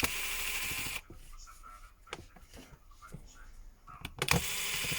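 Screwdriver backing out the phone's small screws, running in bursts of about a second at the start and again near the end, with small clicks and handling noises between.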